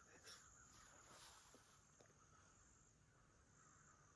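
Near silence: faint outdoor background with a steady high-pitched hiss.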